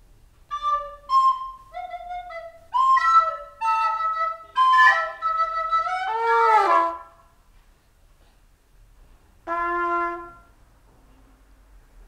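Wind instruments, trumpet- and flute-like, play a quick string of short, separate notes. The notes crowd together and end in a falling slide about six and a half seconds in, and a single held note follows near ten seconds. They stand in for the cartoon birds' squabbling chatter and laughter.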